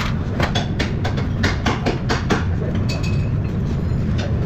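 Metal clicks and clanks as a car's front brake caliper is worked off the brake rotor, with a short squeak about three seconds in, over a steady low rumble.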